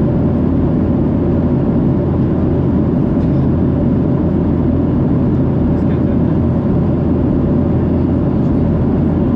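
Steady cabin noise inside a Boeing 737-700 in flight: a constant low roar of the engines and airflow, with a faint steady hum above it and a few faint clicks.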